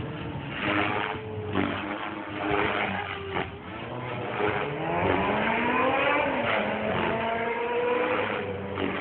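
Electric RC helicopter in flight: the motor and rotor whine goes up and down in pitch as it manoeuvres, with a long rising sweep about halfway through.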